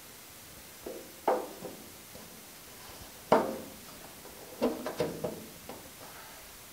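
A series of sharp knocks and taps, several with a short metallic ring, the loudest a little past three seconds in: a tapered piece of wood pushing and bumping against the inside of a 1950 Chevy 3100 truck cab's steel louver panel. The pushed-in louvers are being bumped back out.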